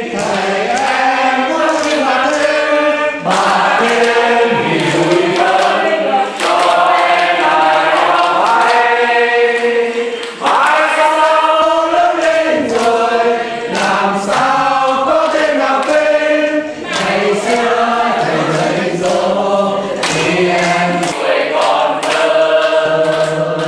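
A group of men and women singing a song together in chorus, with hands clapping along.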